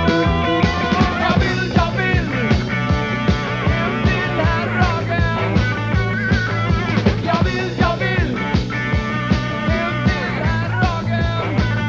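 Rock band playing live: electric guitar, electric bass and a drum kit keeping a steady beat.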